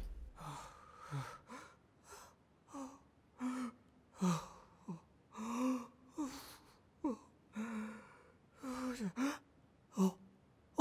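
A person's voice making a string of over a dozen short, wordless breathy gasps and brief sighs, some with a quick falling pitch, spaced out with small pauses between them.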